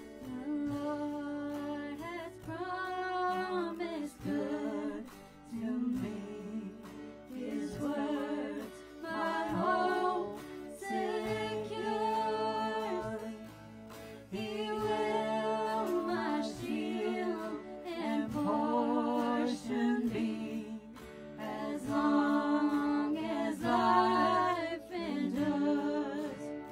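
Worship band music: a slow song on electric guitars, with a voice carrying the melody in long drawn-out phrases.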